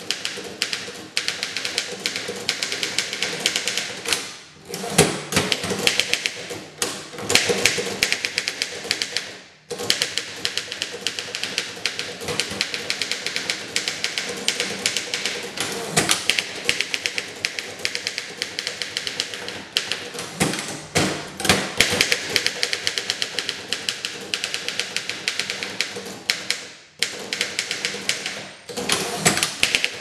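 1911 Underwood No. 5 standard typewriter being typed on fast: a rapid clatter of typebars striking the platen, broken by a few brief pauses.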